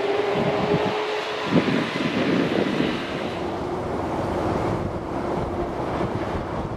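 Airbus A330-300 turbofan engines running as the airliner moves along the ground: a steady whine over a rushing noise. Wind buffets the microphone from about a second and a half in.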